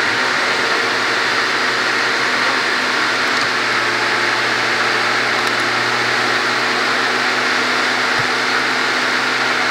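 Steady mechanical drone: a loud, even whirring noise with a low hum beneath it, unchanging throughout.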